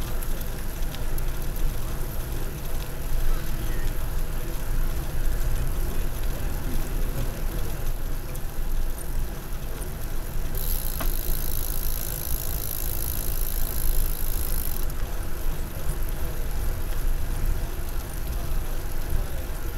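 Steady wind rumble on the microphone of a handlebar-mounted camera on a moving bicycle, mixed with the noise of riding on paved trail. About ten seconds in, a high hiss joins for some four seconds, then stops suddenly.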